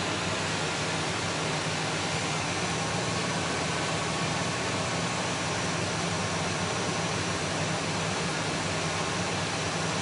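Steady rush of flush water pouring from a PVC drain pipe into a bucket, over the low steady hum of a 2000 Ford Expedition's V8 idling. The running engine is pushing hose water through the cooling system during a coolant flush.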